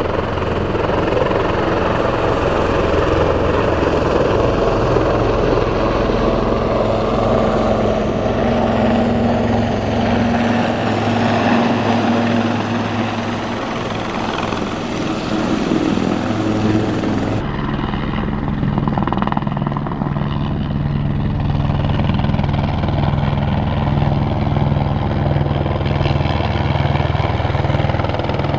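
Helicopters in flight, with turbine and rotor noise. For the first two-thirds a twin-turbine Sikorsky S-76 passes overhead and low. After a sudden cut, a single-engine Airbus AS350 Squirrel flies overhead with a steadier low hum.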